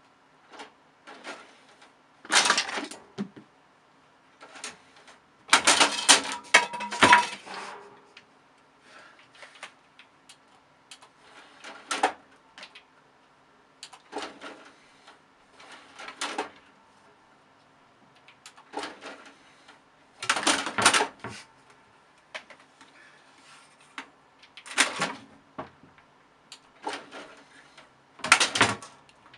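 Irregular clattering and clicking of small hard objects in short bursts, the longest a few seconds in, over a faint steady hum.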